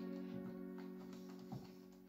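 Background music: a held chord slowly fading away, with a few faint clicks.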